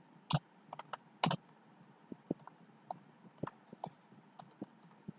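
Typing on a computer keyboard: irregular keystroke clicks, a few a second, with two louder ones in the first second and a half.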